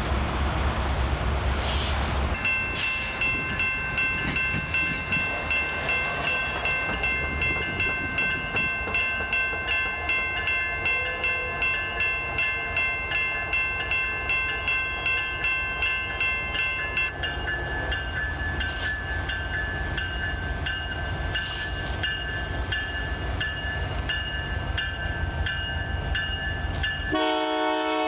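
Canadian Pacific GP20C-ECO diesel locomotive approaching with a low engine rumble while a bell rings steadily, about two strikes a second. Near the end the locomotive's air horn sounds a loud, many-toned chord.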